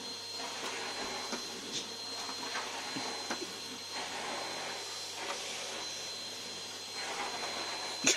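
Vacuum cleaner running steadily, a hiss with a thin high whine. Right at the end a short, loud animal cry breaks in over it.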